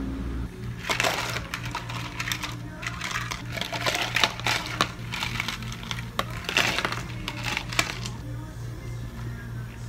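Ice cubes scooped with a plastic ice scoop and dropped into plastic cups of iced coffee, clattering and clinking in quick bursts that stop about eight seconds in. Soft background music runs underneath.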